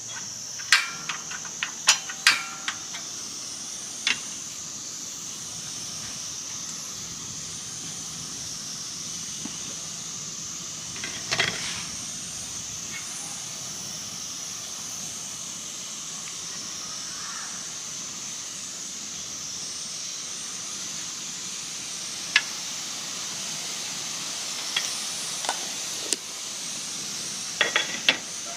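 Steady high-pitched hiss, with sharp clicks and knocks scattered through it: a cluster in the first few seconds, one around the middle and a few more near the end.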